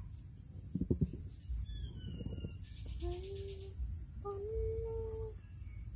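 Baby macaque giving soft, drawn-out coo calls, each under about a second long, once about halfway through and again a little later. Just before, high chirps and a short trill from birds, and a soft bump about a second in.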